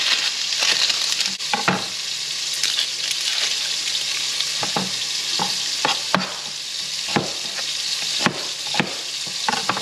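Pork pieces searing in a hot frying pan: a steady sizzle with a few sharp clicks now and then.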